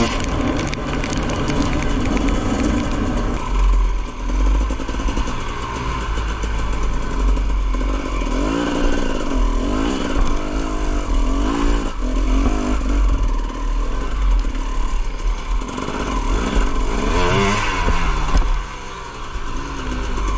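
2016 KTM EXC 250 two-stroke dirt bike engine revving up and down as it is ridden over a rough trail, the pitch rising and falling repeatedly with the throttle. Wind rumbles on the helmet camera's microphone.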